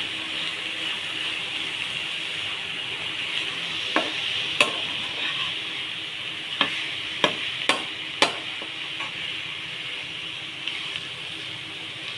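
Cabbage and pointed gourd stir-fry sizzling in a pan as a metal spatula stirs it, with about six sharp clicks of the spatula against the pan in the middle of the stirring.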